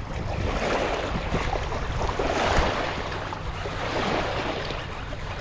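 Small waves washing against a muddy lakeshore, with wind buffeting the microphone: a steady rushing noise.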